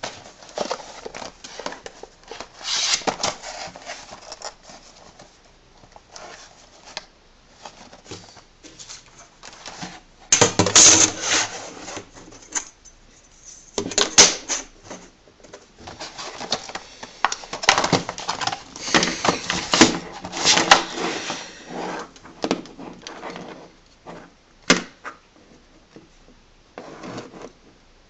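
Hard plastic blister packaging being handled and opened: crackling and crinkling on and off, with sharp clicks and knocks.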